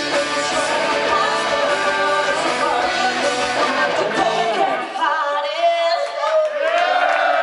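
Live rock band with electric guitar and vocals playing the closing bars of a song; the bass and drums stop about five seconds in, giving way to crowd cheering and whoops.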